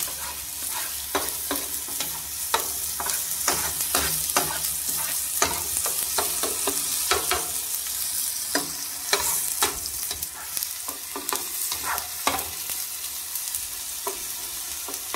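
Chopped onion, pepper and tomato frying in oil in a paella pan, sizzling steadily, with irregular scrapes and clicks of a long-handled metal spoon stirring against the pan.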